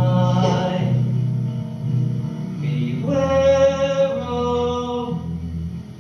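A man and two women singing a song together in harmony, with band accompaniment and long held notes.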